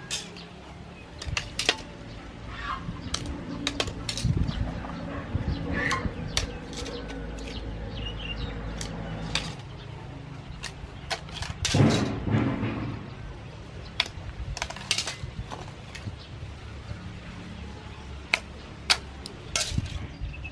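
Scallop shells clicking and clinking as they are handled and moved around in a metal bowl, in many short, irregular knocks. Chickens cluck in the background.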